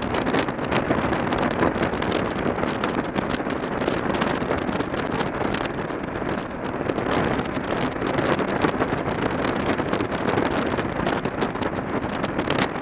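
Wind buffeting a handlebar-mounted camera microphone on a motorcycle riding at highway speed: a steady rush of noise with constant small gusty flutters, and the bike's engine and tyre noise buried beneath it.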